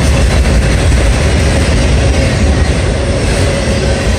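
Autorack freight cars rolling past: a loud, steady rumble of steel wheels on the rails.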